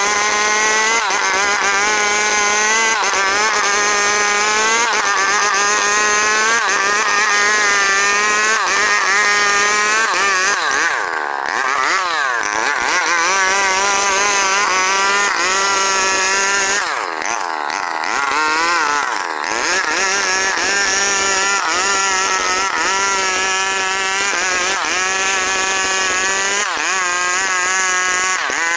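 Stihl 070 two-stroke chainsaw running at high revs while ripping a log lengthwise, its pitch sagging and recovering about every two seconds under the load of the cut. Twice around the middle the pitch swoops down and back up.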